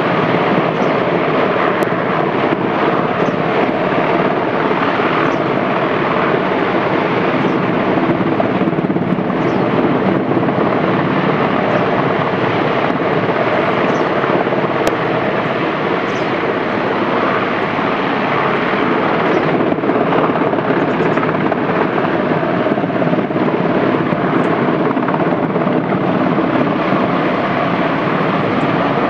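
Rescue helicopter hovering above a cliff during a hoist pickup, its rotor and turbine engine running steadily.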